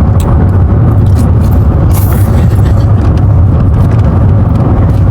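Steady low rumble of a car in motion, heard from inside the cabin, with a brief hiss about two seconds in.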